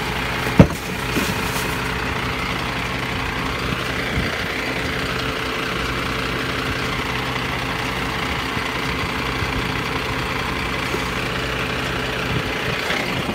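Garbage truck engine idling steadily, with one sharp bang about half a second in.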